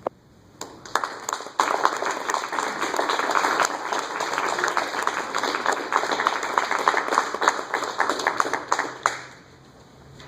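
Audience applauding with many hands clapping, starting about half a second in and dying away near the end.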